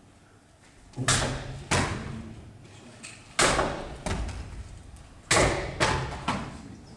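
A katana cutting through a rolled straw-mat target several times, with the cut-off pieces landing on the wooden floor: about seven sharp strikes in three quick groups, each dying away with the room's echo.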